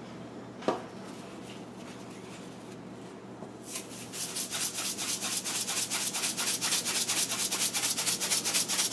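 Seasoning shaker shaken quickly over a raw chuck roast, granules rattling out in fast, even strokes, about six or seven a second. It starts almost four seconds in, after a quiet stretch with one soft knock.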